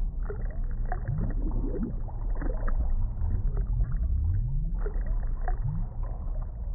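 Muffled underwater ambience: a steady deep rumble with scattered faint clicks and a few short rising low glides.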